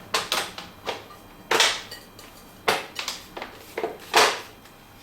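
Plastic washing machine door frame parts being fitted together, giving a string of irregular clicks and knocks, the loudest about a second and a half in and again just after four seconds.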